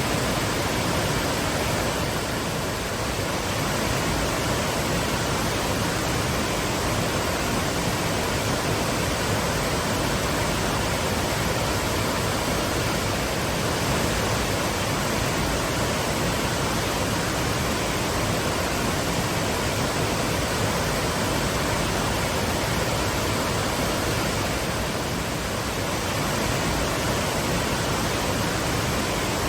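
Waterfall: water pouring and crashing steadily, an even full rushing noise with no breaks.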